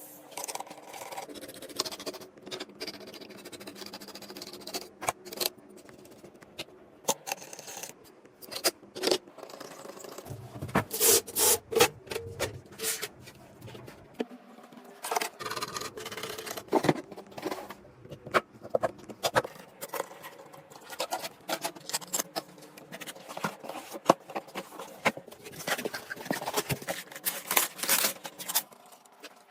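Hands handling PC components during a build: an irregular run of clicks, taps and scrapes, busier around the middle.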